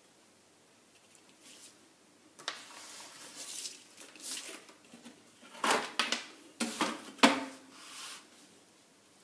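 A clear plastic pattern-drafting ruler and paper being handled and slid about on a table: a run of scraping and rustling strokes from a couple of seconds in, with a few sharper clacks, the loudest a little past halfway.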